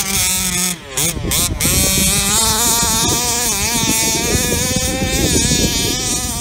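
HPI Baja 5B SS 1/5-scale RC buggy's two-stroke petrol engine revving hard, its pitch rising and falling with the throttle as it drives through sand and up a dune. There is a brief throttle lift just under a second in.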